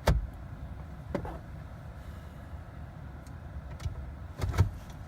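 Four sharp clicks and knocks, the first and last loudest, over a low steady hum: the ignition key and controls being worked inside a Jeep that will not start, with no engine cranking.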